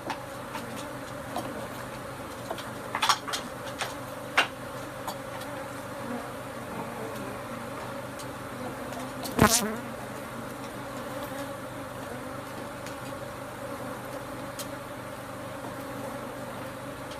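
Honeybees from a disturbed colony swarming in the air: a steady, dense buzzing hum. A few short clicks sound about three to four seconds in, and one louder sharp knock near the middle.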